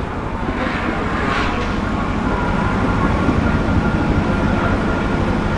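Car engines running hard on a hill-climb course. The Delage D12's 7.6-litre V12 pulls away, swelling twice in the first second and a half, then settles into a steady engine drone with a faint high whine.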